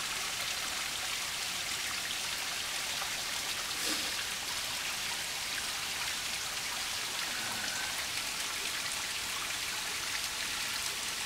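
Water trickling down a wet rock face and pattering steadily into a shallow, silt-filled pool.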